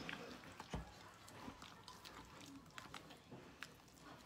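Faint wet squelching and scraping of a spatula stirring a thick chicken, cheese and egg mixture in a glass bowl, with scattered clicks and one knock a little under a second in.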